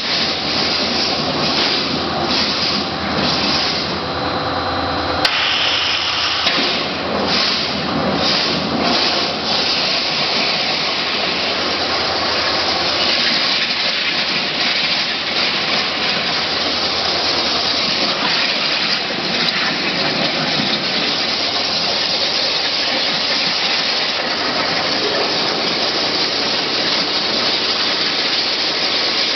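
Abrasive waterjet cutter cutting 5 mm mild steel plate: a loud, steady hiss of the high-pressure jet. A faint whine runs under it for the first five seconds and stops at a click.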